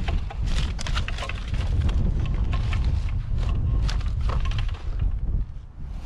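Rattling and knocking of junk being handled and moved about while rummaging through a curbside rubbish pile, over wind buffeting the microphone as a low rumble that eases near the end.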